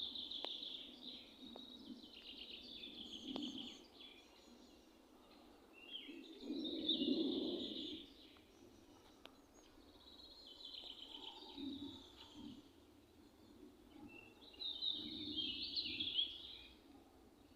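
A songbird singing in repeated phrases of about two seconds each, one every four seconds or so. A low rumble is heard about seven seconds in.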